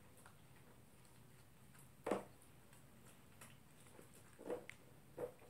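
Toy poodle eating from its food bowl: a few scattered crunches and clicks. The sharpest comes about two seconds in, and two softer ones come near the end.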